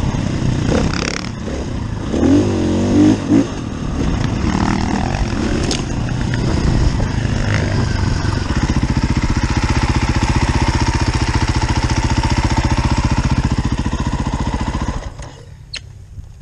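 KTM enduro motorcycle engine revving unevenly on a dirt trail, with a sharp knock as the bike goes down. With the bike lying on its side, the engine runs on at a steady, fast even beat, then cuts out about fifteen seconds in.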